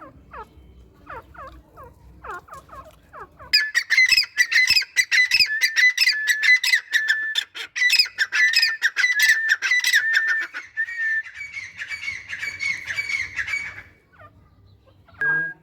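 Francolins (teetar), a male and his female, calling. Faint calls for the first few seconds, then a loud, rapid run of harsh squawking notes starts about three and a half seconds in and stops shortly before the end.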